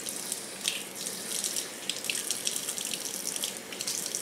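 Kitchen faucet running steadily, its stream splashing over a kitten's wet face and fur and into the sink basin as the shampoo is rinsed off.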